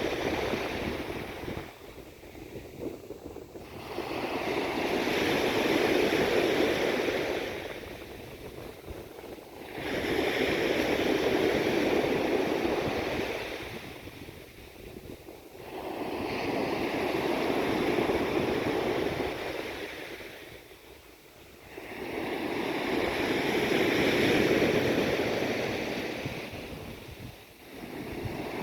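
Sea waves washing in and drawing back, one swell about every six seconds, with some wind on the microphone.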